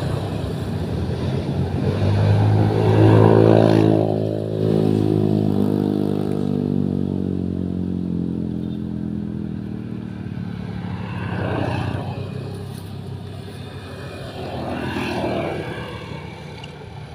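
A motor vehicle passing, its engine loudest about three seconds in and then slowly fading away. Two fainter swells follow, one around two-thirds of the way through and one near the end.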